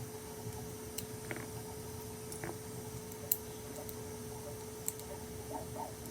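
A few small, sharp clicks and taps as the parts of a utility knife are handled and fitted back together, over a steady faint hum.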